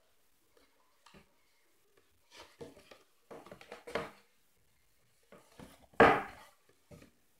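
Scissors snipping through white paper in a few short cuts, followed by a loud sudden thump about six seconds in as the paper is handled right up against the microphone.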